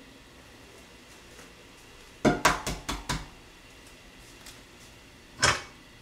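Kitchenware clattering: a quick run of five or six clinks and knocks about two seconds in, and one more sharp knock near the end.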